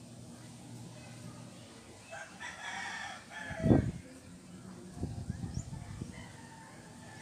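A rooster crowing once in the background, starting about two seconds in and ending on a loud falling note.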